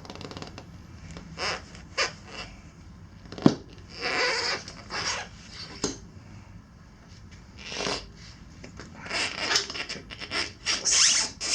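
Tire irons levering the stiff bead of a knobby dirt-bike tire over the wheel rim: irregular rubber squeaks and scrapes, a sharp metallic clink about three and a half seconds in, and a quicker run of short scrapes near the end.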